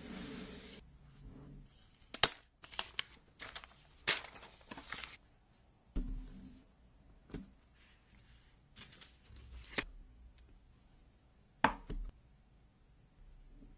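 Unboxing an iPad Pro Magic Keyboard: its box and packaging are handled and pulled open, giving scattered sharp taps and knocks with short stretches of rustling and tearing.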